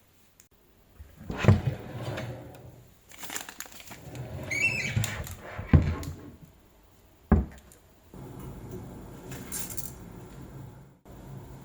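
Kitchen handling sounds as ramen noodles are set to boil: a few knocks and rustles with a brief squeak. From about eight seconds in, a steady low rumble takes over, typical of a pot of water on the boil.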